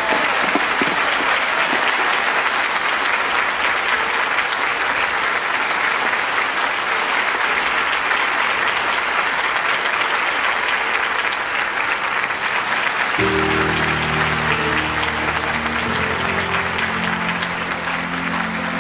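A large audience applauding steadily. About thirteen seconds in, low sustained music comes in underneath the clapping.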